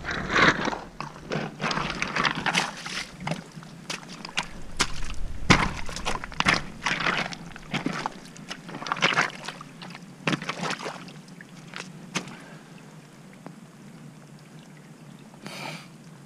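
Boot kicking and scraping rocks and mud away from the mouth of a culvert pipe: a run of irregular scrapes and clatters that stops about twelve seconds in. Runoff water trickles and pours into the pipe, and is left on its own after the scraping stops.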